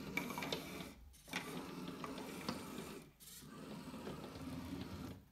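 Small wheeled hobby robot's electric motors whirring in three stretches of about two seconds, with short pauses between, as it carries out its programmed moves.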